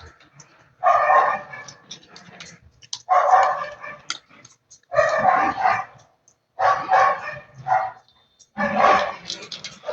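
A dog barking in five drawn-out, loud bursts, each about a second long and spaced about two seconds apart.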